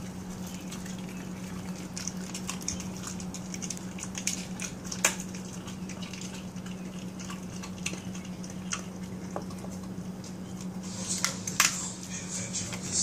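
A Pembroke Welsh corgi chewing raw chicken: scattered wet clicks and crunches, with a sharper click about five seconds in and a cluster near the end, over a steady low hum.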